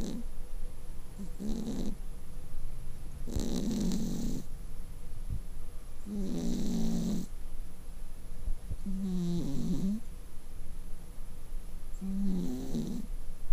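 An Exotic Shorthair cat snoring in its sleep: five snores, one about every three seconds, each a low rattling breath. A sound like human snoring, common in this flat-faced breed.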